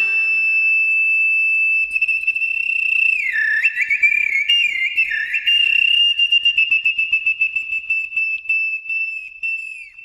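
A small ocarina played high in imitation of birdsong. A long held note gives way about two seconds in to swooping warbles, then to a rapid fluttering trill that drops off just before the end.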